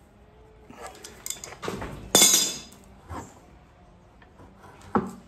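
Adjustable steel wrench clinking and clanking against the shear's iron pivot bolt and nut as the nut is worked. A run of metallic knocks comes about a second in, the loudest clank rings out about two seconds in, and a single sharp click falls near the end.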